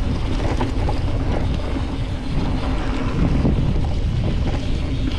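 Wind buffeting a mountain biker's camera microphone during a downhill trail run, a steady rumble mixed with scattered small knocks and rattles from the bike going over rough ground.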